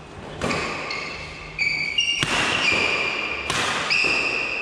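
Badminton rally on an indoor court: a series of about five sharp hits, most of them followed by a high, steady squeal or ring, from rackets striking the shuttlecock and players' shoes squeaking on the floor.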